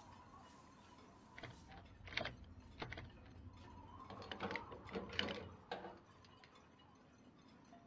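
A small padlock and its metal hasp on a boat's wooden hatch board clicking and rattling as a hand works the lock. The run of sharp metal clicks stops about six seconds in.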